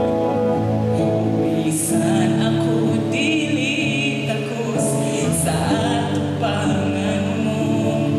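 A woman singing a Cebuano worship song live, accompanying herself on electric guitar. Strummed chords sound first, and her voice joins about two seconds in.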